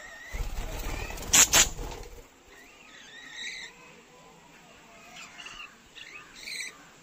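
Lovebirds in a cage giving short chirps and squawks, scattered through the second half. Before that, a low rumble with two sharp clicks about a second and a half in.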